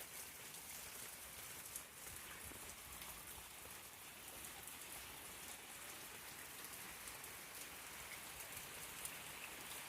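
Steady rain falling on the ground and surfaces around, an even hiss with faint scattered drops.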